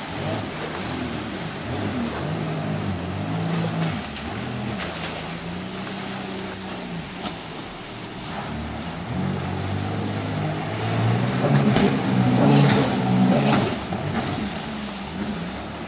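Jet ski engine revving up and down as it carves repeated tight turns, its pitch rising and falling again and again. It is loudest a little past the middle.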